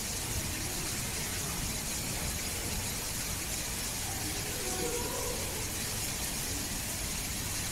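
Steady, even background hiss and hum, with a few faint brief tones around the middle.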